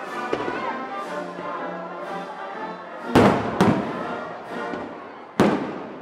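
Fireworks shells bursting: two loud booms about half a second apart around halfway, and a third near the end, over music that fades out.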